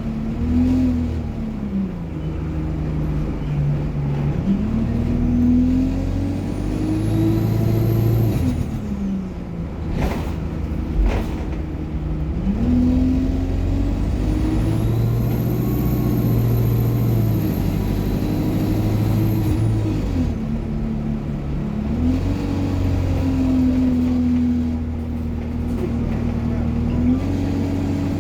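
ADL Enviro200 bus driving with its Allison automatic gearbox: the engine note climbs and drops through gear changes several times. A high turbo whine rises and falls with the throttle. Two sharp clicks come near the middle.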